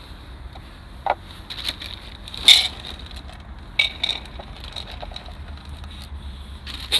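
A few sharp crackles and clicks over a low steady rumble, the loudest about two and a half seconds in.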